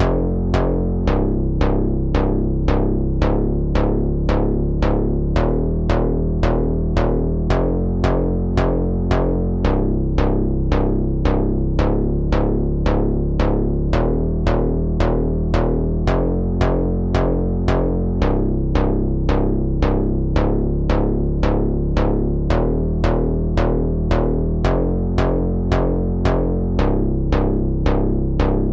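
Electronic funk instrumental made in FL Studio: synthesizer and drum-machine beat, a sharp hit about twice a second over a repeating low bass line.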